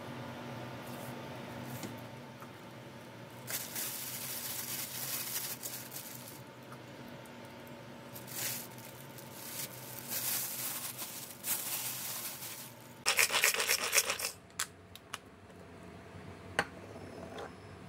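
Scraping and rubbing sounds of kitchen work, coming in several bouts, with the loudest a dense, rattling scrape lasting about a second near the three-quarter mark and a single sharp click soon after. A steady low hum runs beneath.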